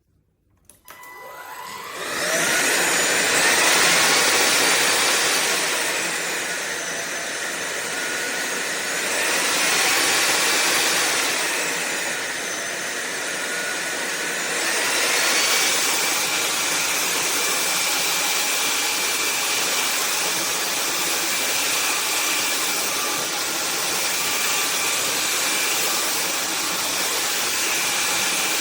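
SunSare X7A cordless stick vacuum starting up and running. Its motor whine rises about a second in, drops and climbs again several times over the next dozen seconds as the power level changes, then runs steadily.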